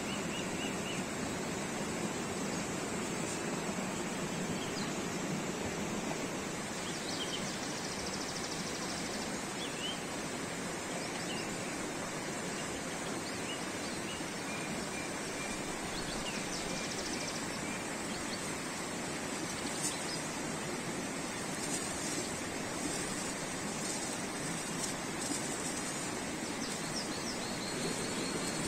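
Steady rushing of a fast mountain stream tumbling over rocks.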